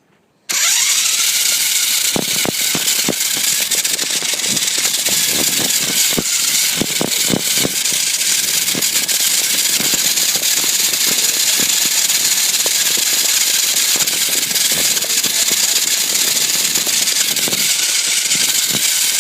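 RC truck driving, heard from a phone mounted on it. The motor and drivetrain start suddenly about half a second in and keep up a steady, hissy whir. Frequent knocks and rattles come from the truck bouncing over rough ground.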